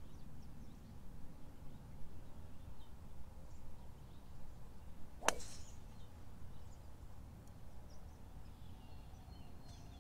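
A single sharp crack of a golf club striking the ball on a tee shot, about five seconds in, over a low steady wind rumble.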